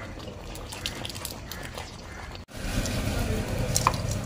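A steel ladle stirring thick jackfruit payasam in a large metal pan, with soft scrapes and small clicks. After a brief break about halfway, a louder low steady rumble sets in, and a couple of sharp metal clinks come near the end as fried cashews and raisins are tipped in from a steel bowl.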